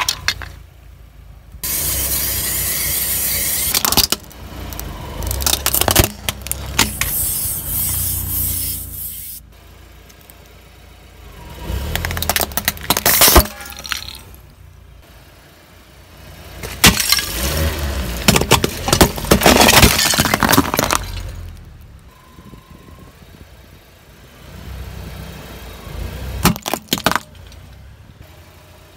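A car tyre crushing objects: bursts of cracking, crunching and breaking with sharp single cracks. Passages of steady hiss fall between the bursts, and quieter gaps separate them.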